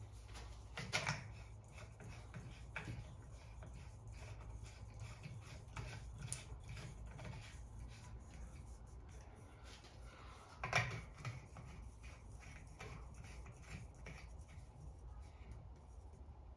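Light bulbs being screwed into the metal sockets of a ceiling fan light kit: faint scraping and small clicks of glass and metal being handled, with a louder knock about a second in and another about eleven seconds in.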